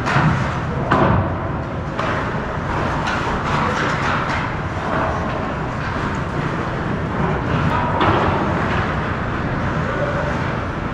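Hockey game in play: a steady rush of rink noise broken by a few sharp clacks of sticks and puck, with faint distant voices.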